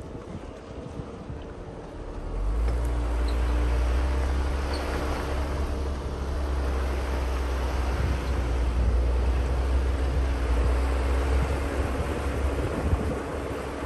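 4x4 driving on a dirt trail: a steady engine drone with tyre and road noise, getting louder about two seconds in as it picks up and a deep rumble sets in.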